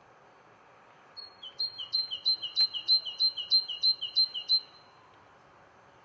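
A songbird singing a quick run of about a dozen repeated two-note phrases, each a higher note followed by a slightly lower one, starting about a second in and lasting some three seconds.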